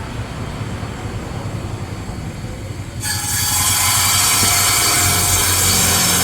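An electric woodworking machine runs with a low hum. About halfway through, its blade or cutter bites into bayur wood and a loud, high cutting noise starts suddenly and holds steady.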